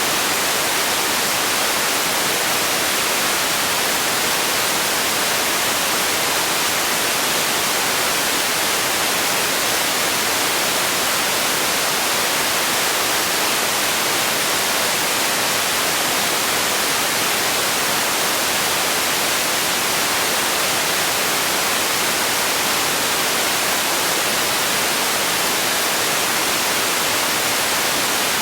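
Steady generated noise for sleep: a constant, unchanging hiss with most of its weight in the upper range and little bass.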